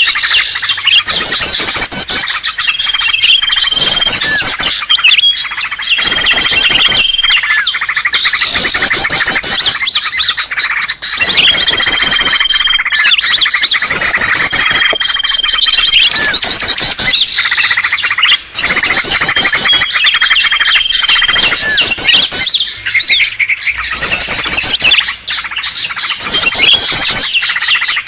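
Cucak ijo (leafbird) calling agitatedly, a loud, fast, high-pitched chattering warble broken by short level whistled notes that repeat every couple of seconds. This is the noisy "ribut" call used as a lure to draw in wild leafbirds.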